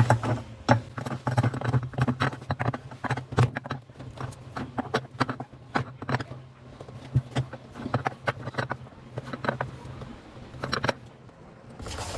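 Ratchet wrench clicking rapidly as it tightens the wedge screw that locks the spin basket onto the shaft of a Consul washing machine, with metallic clinks of the tool; the clicking thins out near the end.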